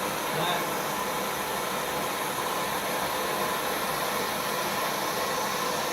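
Handheld gas soldering torch burning with a steady hiss, heating the threaded back side of a copper shower-valve joint so the solder will be drawn in.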